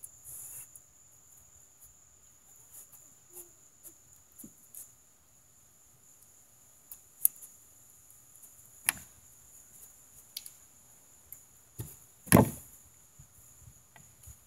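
A few short, sharp knocks and thumps, the loudest and heaviest about twelve seconds in. Between them there is a faint steady high hiss and scattered small clicks.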